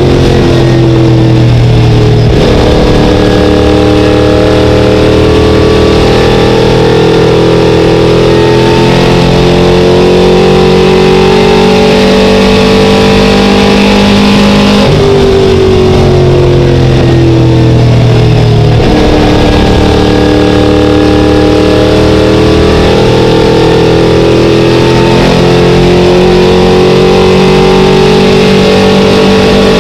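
ACT Late Model stock car's V8 engine running hard at racing speed, heard from inside the cockpit. Its pitch climbs steadily for long stretches and falls away twice as the car slows for the turns, the second time about halfway through.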